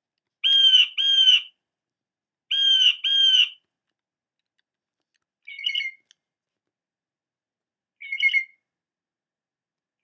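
Blue jay giving harsh, squawking jay calls, two pairs of calls about two seconds apart; then three shorter, different bird calls follow at roughly even gaps.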